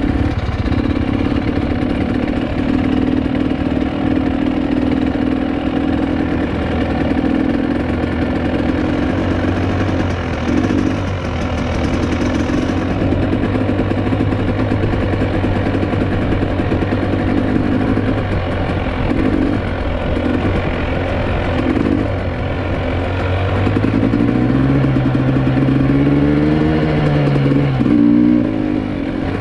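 GasGas EC 300 two-stroke enduro motorcycle engine running at low, steady revs as the bike rolls slowly. Near the end it picks up revs and eases off again.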